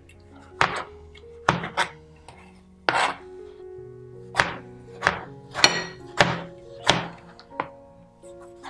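Chef's knife chopping tomatoes on a plastic cutting board: about ten sharp knocks, unevenly spaced roughly half a second to a second apart, over soft background music.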